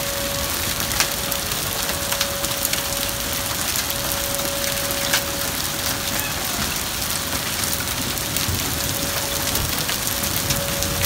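A hailstorm: heavy rain and hail falling on pavement, grass and a parked car, a steady hiss of rain with scattered sharp ticks of hailstones striking. A faint steady hum runs underneath.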